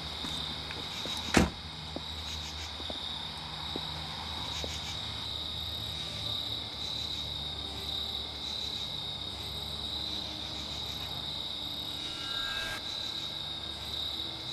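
Crickets chirping steadily, with a single loud thump about a second and a half in.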